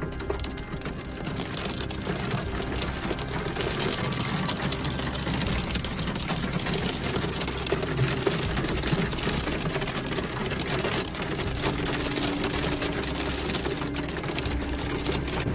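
Heavy rain and hail drumming on a car's roof and windscreen, heard from inside the car: a dense, steady patter of countless small hits, with a low hum underneath.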